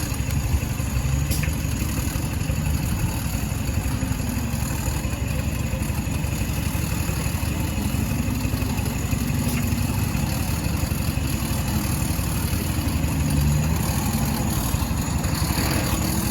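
Jeep Rubicon's engine running at low revs and steady level, its pitch rising and falling a little as the Jeep works at a muddy climb.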